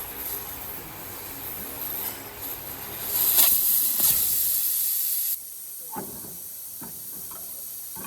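Compressed air hissing hard for about two seconds, then cutting off suddenly, as during work on a tractor tire; a few light knocks follow.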